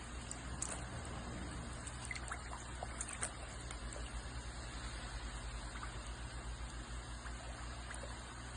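Water trickling steadily, with a few faint scattered clicks.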